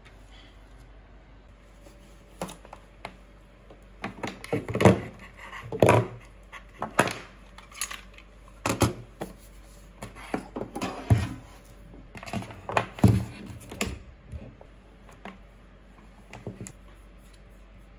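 Plastic charger plug and cables being handled and set down on a desk: an irregular string of light clicks, knocks and clatters that starts a few seconds in and stops a few seconds before the end.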